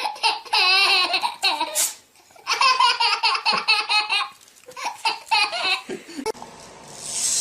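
Someone, likely a young child, laughing heartily in runs of quick repeated bursts, with two short pauses. Near the end the laughter stops and a steady hiss takes over.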